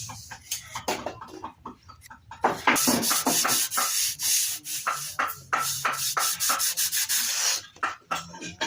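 Wood being sanded by hand over puttied holes, in quick rough back-and-forth strokes. The strokes are sparse at first and turn fast and louder from a little after two seconds until near the end.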